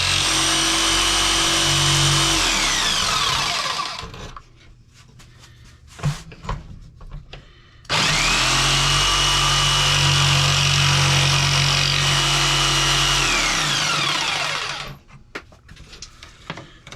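Corded Ryobi power tool running in two runs of several seconds, spinning up with a rising whine about eight seconds in and winding down with a falling whine after each run. Light knocks and clatter between the runs.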